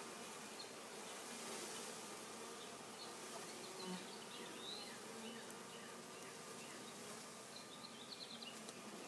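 A package of thousands of honeybees buzzing: a faint, steady hum of many bees being shaken out into the hive.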